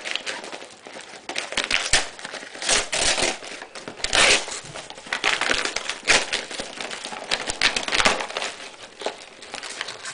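Brown paper wrapping covered in clear packing tape crinkling and tearing as a parcel is pulled open by hand, in irregular rustling bursts with sharp crackles.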